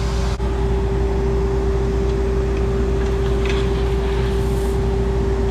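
Case IH 7120 tractor's diesel engine running at a steady speed: a constant low hum with a steady whine over it.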